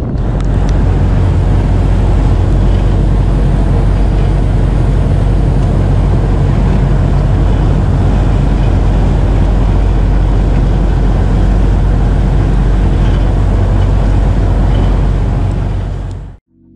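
Fishing boat under way, its engine running steadily with a low drone beneath a dense rush of noise, which cuts off suddenly near the end.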